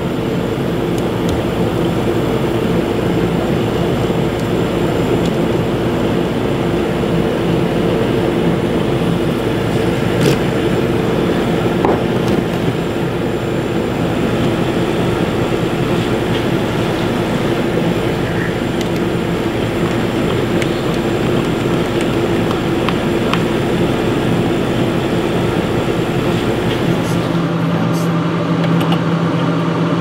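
Beverage-Air UR30GE mini fridge's compressor and condenser fan running, freshly charged with R134a through its suction line: a steady hum of a few low tones over a wash of fan noise. The low end drops away a couple of seconds before the end.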